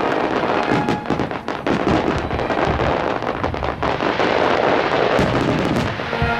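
Fireworks display going off continuously: deep booming shell bursts overlapping with sharp crackles, with a thick cluster of crackling about five seconds in.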